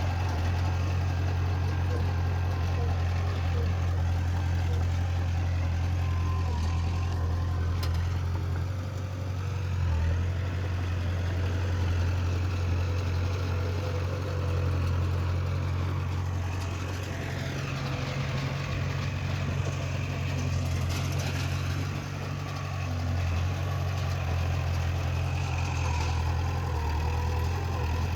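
Heavy diesel engine of earthmoving machinery running steadily with a deep, even hum. A couple of brief higher whines rise and fall over it, about seven seconds in and again around seventeen seconds.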